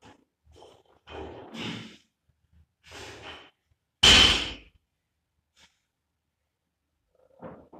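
Heavy, hard breathing of an athlete bent over a loaded barbell mid-workout, with a sudden loud thud about four seconds in as the bumper-plated barbell hits the gym floor.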